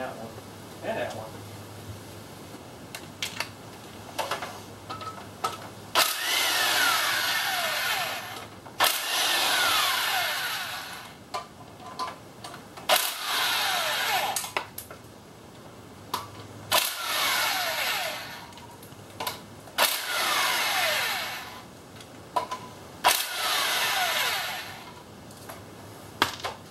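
Impact wrench running in six bursts of two to three seconds each, each with a falling whine, as it zips out the bolts holding the transmission damper to the engine's flywheel. Small metal clicks come between the bursts.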